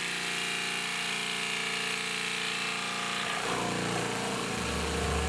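Straight-line sander running steadily, its long pad rubbing back filler on an oak-strip tabletop; its tone shifts about three seconds in.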